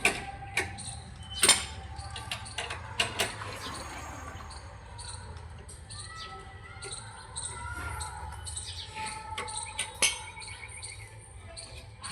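Scattered sharp knocks and clinks of metal tools and car-jack parts during a car wheel change, several in the first three seconds and one more about ten seconds in, over a low steady hum.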